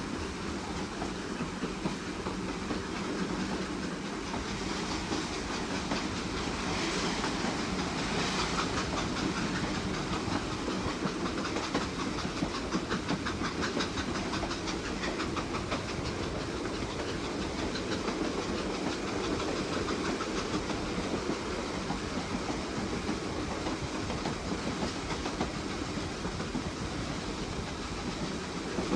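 Train running on rails: a steady rumble with a rapid, even clicking of wheels over the track, and a brighter rush of noise about seven seconds in.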